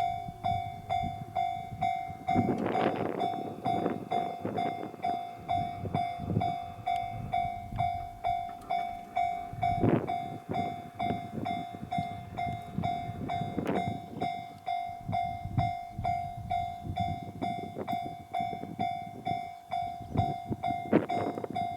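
Japanese level-crossing warning bell ringing, a steady electronic tone repeating at an even beat, while a Hachiko Line diesel railcar passes over the crossing with a rumble and irregular wheel knocks.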